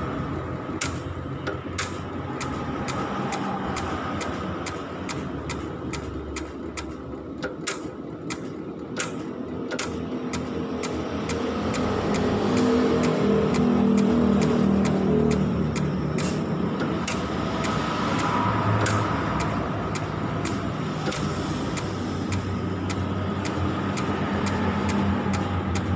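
Stainless steel welding work: a steady mechanical hum with irregular sharp clicks, getting louder for a few seconds in the middle.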